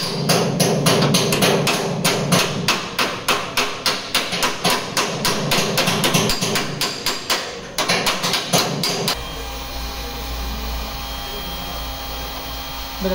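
Hammer striking the steel upper radiator support of a crash-damaged Toyota Prado in quick, even blows, about four a second, to straighten it. About nine seconds in, the hammering gives way to the steady hum of an electric heat gun.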